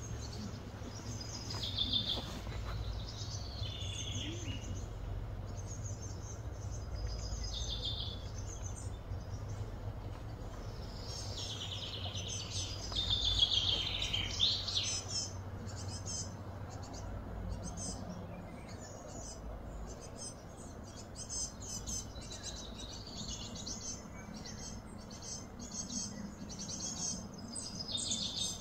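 Birds chirping and calling on and off, with a denser trilling run about halfway through and quick repeated chirps later on, over a low steady rumble.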